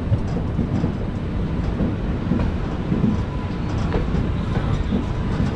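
Running noise of a moving passenger train, heard at an open coach door: a steady rumble of the wheels on the rails with a few faint clicks.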